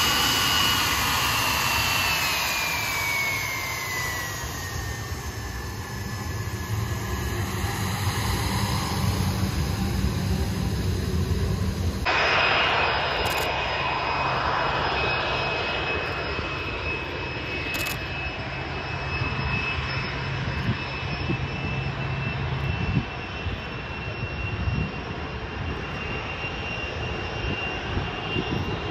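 Blackburn Buccaneer's twin Rolls-Royce Spey jet engines whining as it taxis close by, the whine falling in pitch over the first few seconds. After a sudden cut about midway, the same jets are heard from far across the airfield, running steadily with a high whine over a broad rush.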